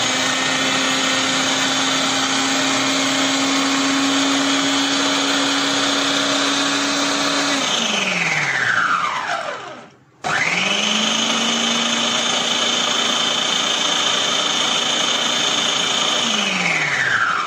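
Electric food processor motor running steadily while it mixes flour, salt and oil for dough. About halfway through it winds down with a falling whine, then starts again, runs steadily and winds down once more near the end.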